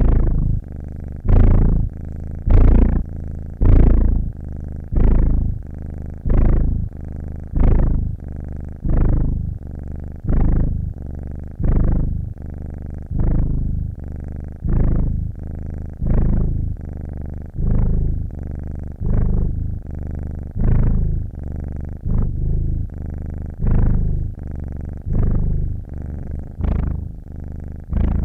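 Domestic cat purring close up, a steady low rumble that swells and eases with each breath in and out, about once every second and a half.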